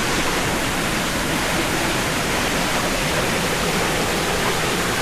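Mountain stream water rushing over rocks in a valley, a steady loud rush.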